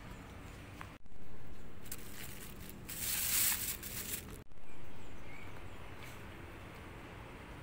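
Thin plastic bag crinkling and rustling as a hand handles bilimbi fruit inside it, loudest about three seconds in. The sound breaks off abruptly about a second in and again near the middle.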